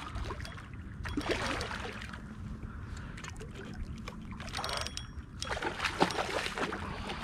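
Hooked redfish thrashing at the surface of shallow water, splashing in irregular bursts, strongest about a second in and again around six seconds in.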